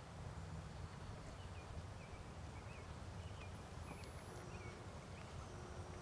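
Quiet open-air ambience: a steady low rumble with faint, short chirps of distant small birds scattered through the middle.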